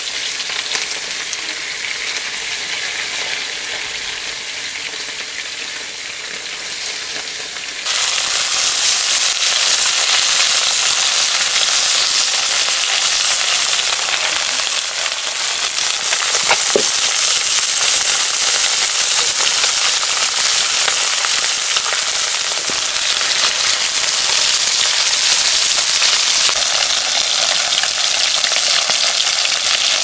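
Small stream fish frying in hot oil in a steel wok: a steady sizzle that turns suddenly louder about eight seconds in.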